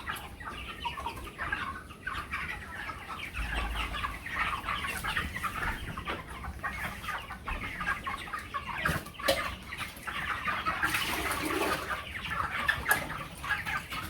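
A flock of broiler chickens clucking, with many short calls overlapping without a break.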